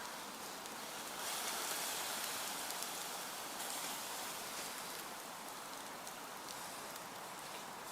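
Campfire embers hissing and sizzling after being doused with water, a steady hiss that swells for a couple of seconds near the start.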